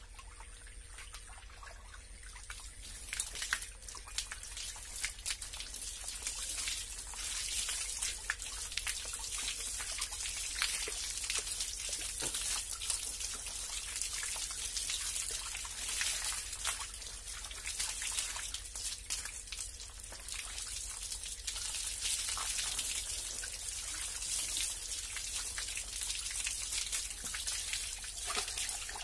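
Water from a garden hose pouring over a person's body and splashing onto a concrete floor: a steady patter of many small splashes that starts about three seconds in.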